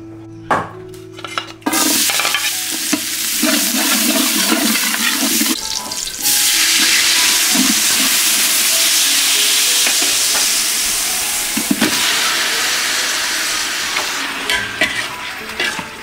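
Minced garlic and green onion frying in hot oil in an aluminium pot and stirred with a metal ladle: a loud, even sizzle that starts suddenly about two seconds in and grows louder around six seconds in. A couple of cleaver knocks on a wooden board come before it.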